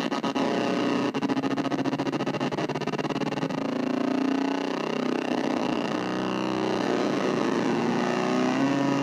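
Casper Electronics Nova Drone analog synthesizer playing a dense drone of several stacked tones. A rapid pulsing in the first three seconds or so gives way to a steadier drone whose tones slowly shift in pitch.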